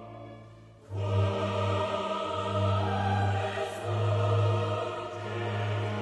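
Background music of long held notes, dipping away briefly and coming back in loud about a second in.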